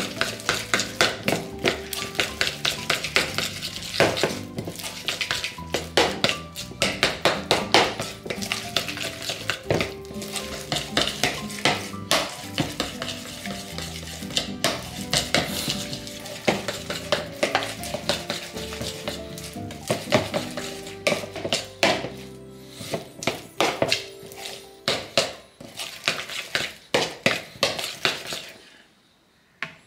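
Metal spoon stirring and scraping quickly around a bowl, mashing egg yolks into mayonnaise, with fast, continuous clacks and scrapes. The stirring stops suddenly about a second before the end.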